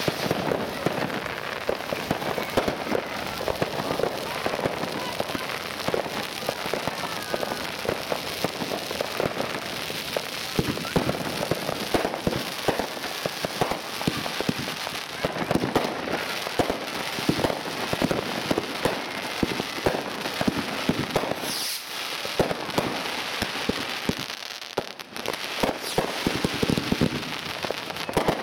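Class 2 consumer fireworks going off: a dense, unbroken run of crackling and popping, briefly quieter near the end.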